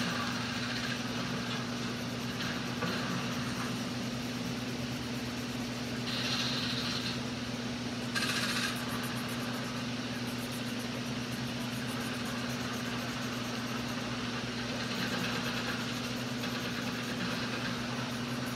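Coloured pencil scratching on sketchbook paper as a drawing is coloured in, with a couple of brief louder strokes, over a steady low hum.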